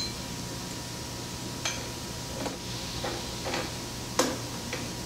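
Light metallic clicks and taps, about six at irregular intervals, the loudest about four seconds in, as the bolts that come up from underneath a Kurt AngLock vise are fitted back in. A steady low hum runs underneath.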